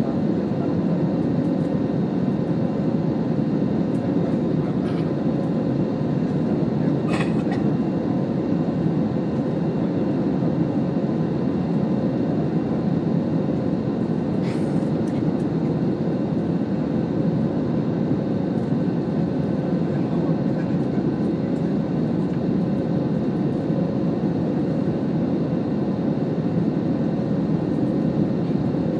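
Steady low roar of jet engines and airflow inside a commercial airliner's passenger cabin during the climb after take-off, with a couple of faint clicks.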